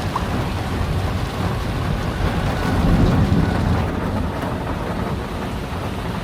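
Steady heavy rain, with a low rumble swelling about halfway through.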